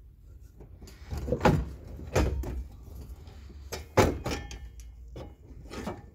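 Rusty steel dash support bar of a Ford Festiva being wiggled off its mounting stud: irregular clanks and scrapes of metal on metal, the sharpest knock about four seconds in.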